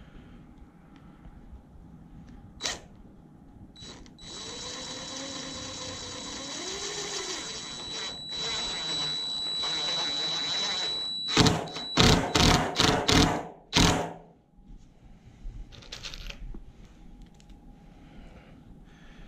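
Cordless driver sinking a wood screw into a pine board: the motor runs steadily with a thin high whine for about seven seconds, then comes about six short, loud trigger bursts as the screw is driven home.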